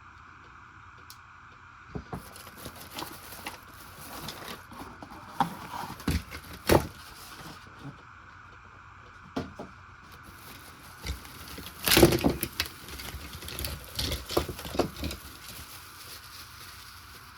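A package being unpacked by hand: irregular rustling, scraping, clicks and knocks, with the loudest cluster of knocks about twelve seconds in, over a steady faint background hum.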